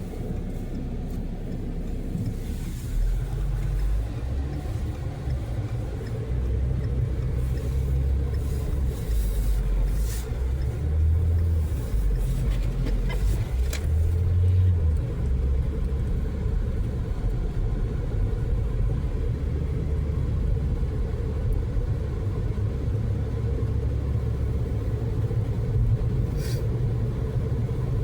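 Low, steady rumble of a small four-cylinder car driving on a snow-covered road, heard from inside the cabin, swelling louder a couple of times near the middle.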